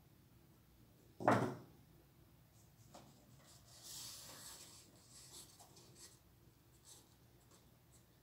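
Paper scraps being pressed and rubbed by hand onto a cardboard box, with soft rustling and a stretch of rubbing about four seconds in. A single short thump about a second in is the loudest sound.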